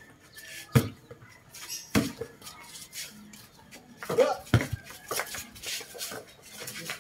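Several sharp knocks and clatters, hard objects striking, irregularly spaced with two close together around the middle.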